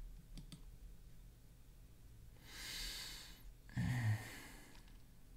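A man breathing out heavily twice in a row, the second a sigh with a little voice in it, about three and four seconds in. A few faint ticks come before it.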